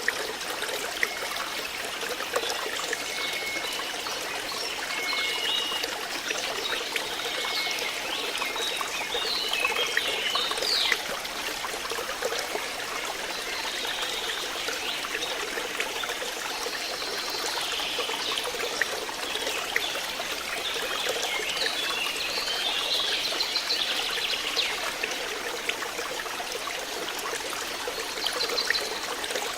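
Water flowing and trickling steadily in a stream, with short high bird chirps now and then.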